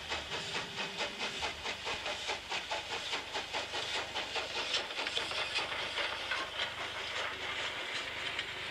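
Steam-train chuffing: a quick, even beat of about five chuffs a second over a steady hiss.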